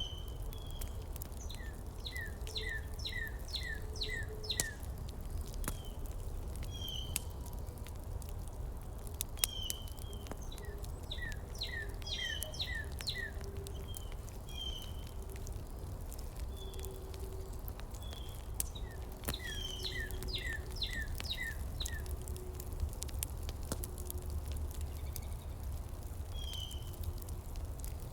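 Songbirds singing: several runs of about six quick descending chirps each, with single whistled notes in between. Underneath is a steady low rumble with scattered faint clicks.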